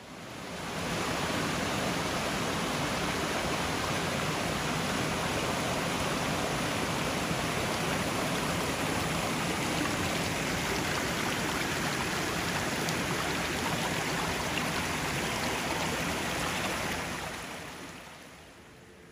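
Rushing water, a steady even rush that fades in over the first second and fades out a couple of seconds before the end.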